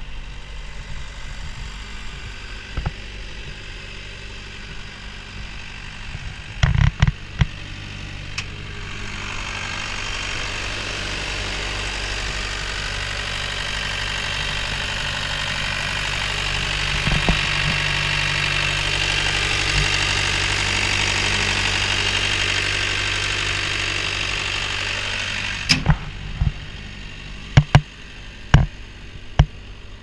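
Caterpillar 242B3 skid steer's diesel engine idling steadily. For the middle stretch, close to the engine bay, it gets louder with a strong hiss. A few sharp knocks and clicks come about seven seconds in and several more near the end.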